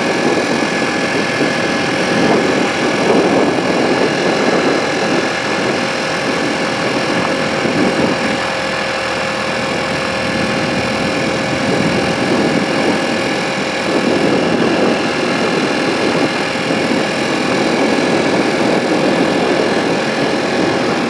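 Engine of the slow-moving vehicle carrying the recorder, running steadily, with a thin steady whine over a low drone.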